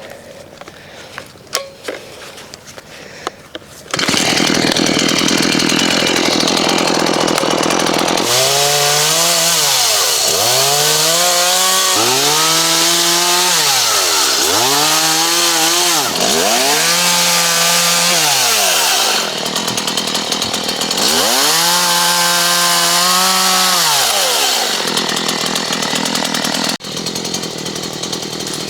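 Petrol chainsaw coming in suddenly about four seconds in and running hard, its pitch rising and falling six times as it is worked through branches of a storm-felled tree. It settles to a lower speed near the end.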